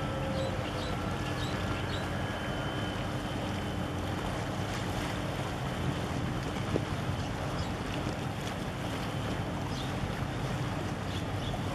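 Low, steady drone of ship engines as a large container ship passes close by, with wind noise on the microphone over it.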